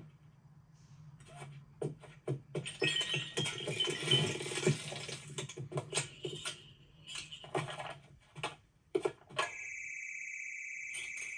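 Animated-film sound effects: a quick run of clicks and clattering over a steady low hum. Near the end a steady high electronic tone starts and holds.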